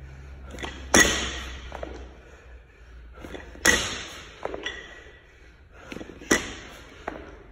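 A barbell loaded with bumper plates lands on a rubber gym floor three times, about every two and a half seconds, between ground-to-overhead reps. Each landing is a sudden thud with a brief metallic ring.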